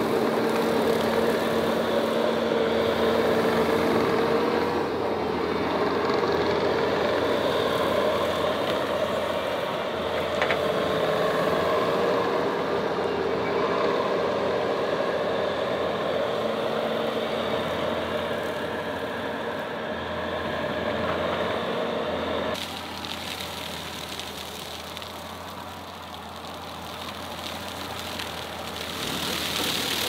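Skid steer engine running steadily under work. About 22 seconds in its sound drops abruptly and quietens, then picks up again near the end.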